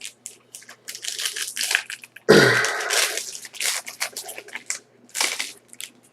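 Wrapper of a hockey card pack being crinkled and torn open, in a run of irregular rustling bursts, the loudest a little over two seconds in.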